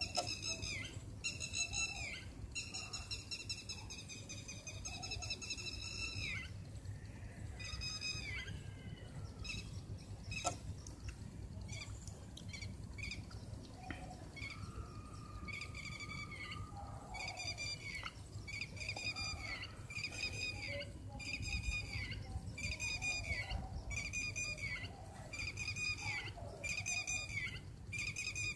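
High-pitched animal calls: a long held call a few seconds in, then short calls repeating about once a second through the second half.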